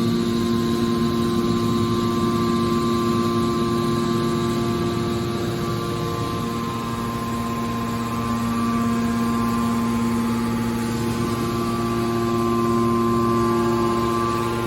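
Hydraulic power unit of a scrap metal baler running: a steady hum with a whine made of several constant tones.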